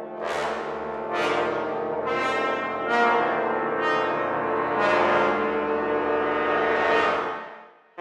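Sampled orchestral brass ensemble of horns, trumpets and trombones playing a dark aleatoric effect: a held low chord with bright blasts recurring about once a second, dying away near the end.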